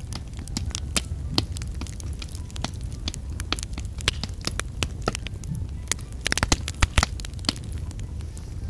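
A ball of sticky mashed-potato mixture being squeezed and shaped by hand, giving many small wet clicks and crackles, with a denser run of louder clicks about two-thirds of the way through. A steady low rumble runs underneath.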